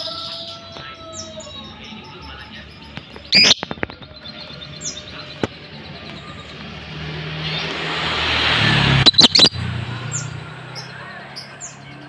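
Caged Fischer's lovebird giving short, high chirps every second or so. Loud sharp clicks come about three seconds in and again near nine seconds, after a rush of noise that swells from about seven seconds.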